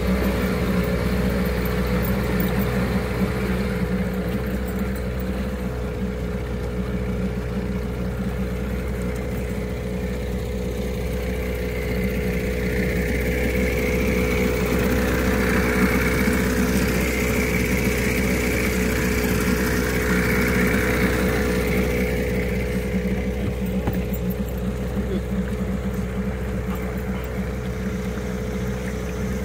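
1982 Evinrude 15 hp two-cylinder two-stroke outboard running at a steady, even throttle, pushing the inflatable boat along.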